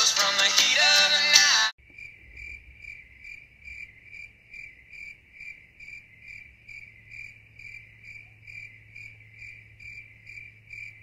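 A song stops abruptly under two seconds in. Crickets then chirp steadily at about two to three chirps a second over a faint, low, steady hum.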